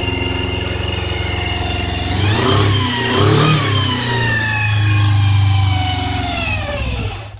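Honda CBR400F-3 motorcycle's air-cooled inline four-cylinder engine idling steadily, then revved a couple of times about two seconds in, held at higher revs and let fall back, cutting off suddenly near the end. The owner reports an abnormal noise from this engine.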